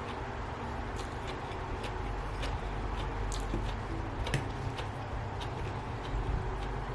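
Close-up eating sounds: a person chewing a mouthful of spicy seafood instant-noodle salad, with small wet mouth clicks scattered through, over a steady low hum.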